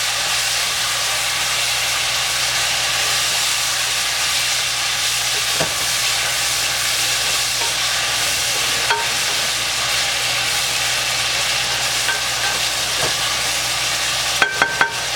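Jerk-marinated chicken frying in rendered salt pork fat with onions, peppers and celery: a steady, even sizzle, with a few light clicks and a short run of sharp knocks near the end.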